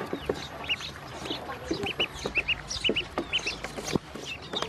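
Ducklings peeping: many short, high chirps, often in quick pairs, with light taps and knocks scattered among them.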